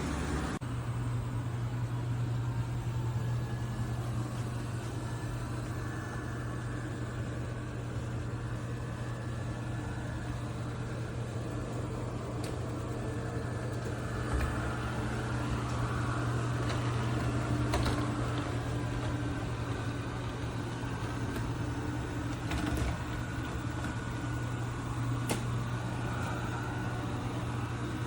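eufy RoboVac 11S Max robot vacuum running, its suction motor and brushes making a steady low hum with a whir over it, and a few light knocks here and there.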